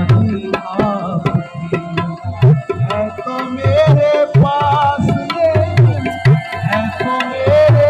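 Live devotional music: tabla drumming with deep, repeated bass strokes under a harmonium and a wavering sung melody.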